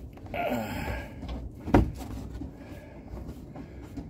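Hands working a loosened nut off the upper control arm bolt of a truck's front suspension, with handling noise and one sharp knock a little under two seconds in.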